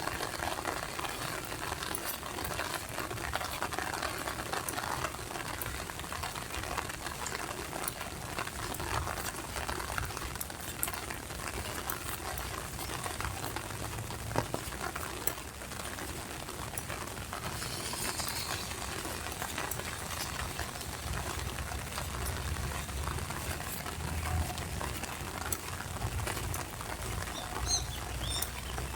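Steady rain pattering, with a few short bird chirps near the end.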